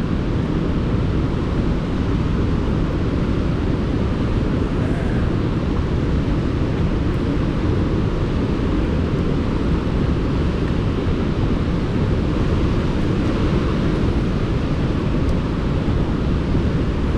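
A large waterfall in high flow, close by: a loud, constant, deep rush of falling water that holds steady throughout.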